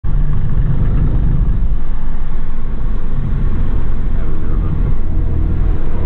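Skoda Octavia RS245's 2.0-litre turbocharged four-cylinder engine running steadily, heard inside the cabin with a loud low road rumble.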